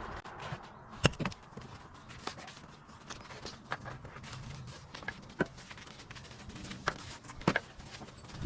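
Irregular sharp clicks and knocks, a dozen or so scattered over several seconds, from a climber and his gear working up a tree.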